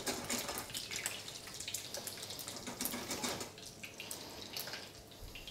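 Torrijas frying in hot extra-virgin olive oil in a frying pan, a quiet, steady sizzle with scattered small crackles and pops as they brown.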